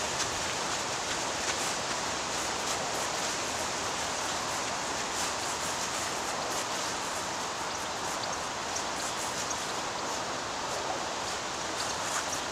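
Steady hiss of noise at an even level, with a few faint scattered clicks; no music or speech.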